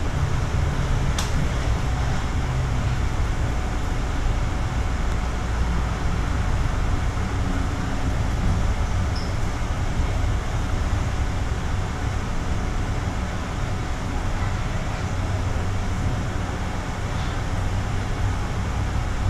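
Steady low running noise inside a cable-hauled Cabletren people-mover car as it travels along its elevated guideway, with a single sharp click about a second in.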